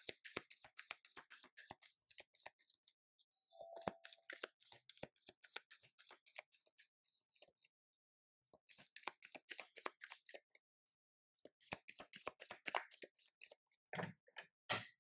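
A deck of tarot cards shuffled by hand: fast runs of clicking cards in four bursts with short pauses between, then two duller knocks near the end.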